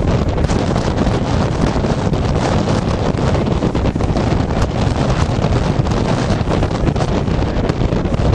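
Wind buffeting the microphone: a loud, steady, rough rushing noise with no bell tones or strikes.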